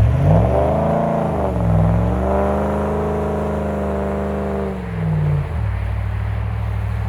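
Vehicle engine revved twice: a short blip, then a longer rev held for a couple of seconds before dropping back to a steady idle.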